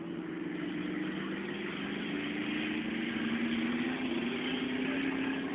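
Pickup truck engines running as the trucks drive on a dirt track. The sound grows louder over the first couple of seconds, and the engine note shifts slowly up and down.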